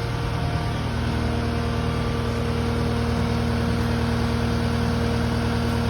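An engine idling steadily, a constant even hum with no change in speed.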